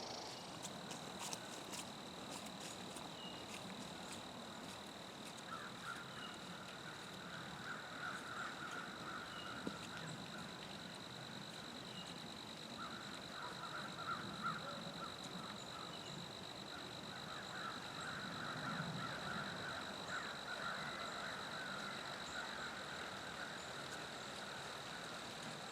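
Faint outdoor insect chorus: one high, steady trill runs throughout, and a lower buzzing call comes and goes in three stretches. A few faint clicks sound in the first couple of seconds.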